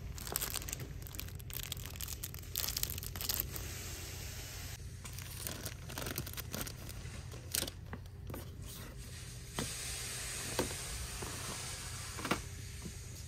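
Plastic and cellophane toy packaging crinkling and rustling as it is handled, with a few sharper crackles in the second half.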